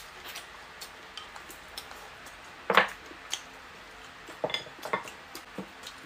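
Chopsticks clicking against porcelain bowls and plates during a meal: a few scattered light clinks and knocks, the loudest nearly three seconds in.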